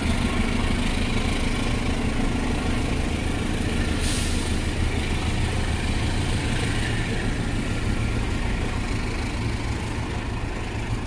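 CC 206 diesel-electric locomotive hauling a long passenger train away: a steady low engine drone, with a brief hiss about four seconds in. The sound eases slightly near the end as the train draws off.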